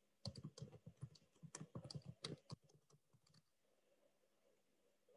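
Faint typing on a computer keyboard: a quick run of key clicks that stops about three and a half seconds in.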